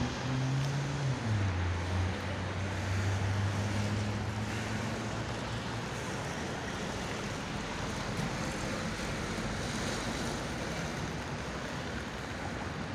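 Metro train's electric traction motors humming as it pulls away along the track, the hum stepping in pitch in the first second or so, then holding steady and fading out about six seconds in. An even outdoor rush of wind and distant traffic noise remains.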